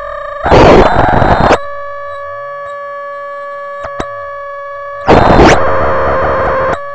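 Homemade modular synthesizer holding a steady high drone with overtones, cut across twice by loud bursts of harsh noise: one about half a second in lasting about a second, another about five seconds in lasting nearly two seconds. Faint clicks and slow, low sweeping tones sound beneath the drone.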